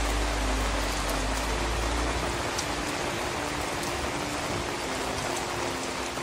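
Steady rain falling, an even hiss with scattered sharp ticks of nearby drops. A low rumble underneath stops about two and a half seconds in.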